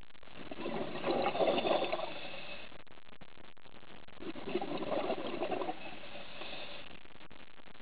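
Scuba regulator exhaust: the diver's exhaled bubbles gurgle out twice, about three and a half seconds apart, in a regular breathing rhythm over a steady underwater hiss.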